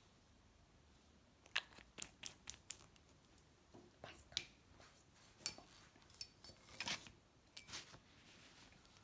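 Manicure tools snipping at fingernails: a quick run of about five sharp clicks a second and a half in, then scattered clicks and light rustling until near the end.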